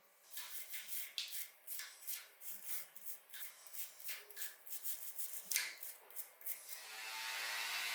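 Irregular rubbing or scraping strokes by hand on a small part, roughly two to three a second. Near the end a small electric motor starts up and builds to a steady buzz.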